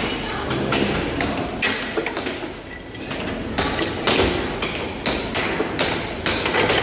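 Air hockey puck and strikers clacking on a 'Speed Hockey' table: a dozen or so sharp hits at irregular intervals as the plastic puck is struck back and forth and bounces off the rails.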